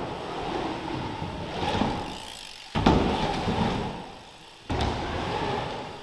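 Mountain bike tyres rolling over skatepark ramps, with hard landing thuds about three seconds in (the loudest) and again near five seconds, each followed by the rolling noise.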